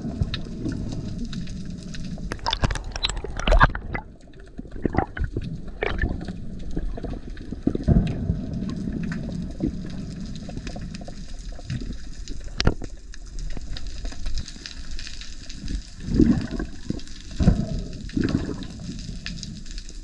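Underwater sound of water moving around a diver's camera: a steady low rumble with scattered sharp clicks and knocks.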